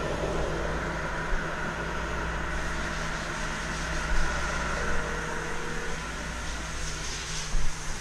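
Steady mechanical hum and hiss inside a tool truck, with a few light knocks, the loudest near the end.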